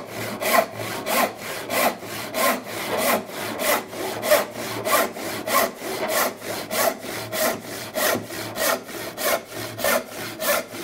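Rip-cut handsaw ripping a board along the grain, in steady, even strokes about one every 0.6 seconds.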